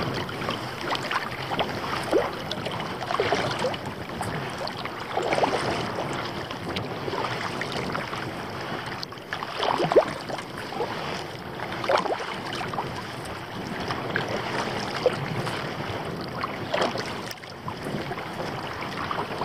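Kayak paddle strokes dipping and splashing in choppy water every couple of seconds, over a steady rush of wind on the microphone.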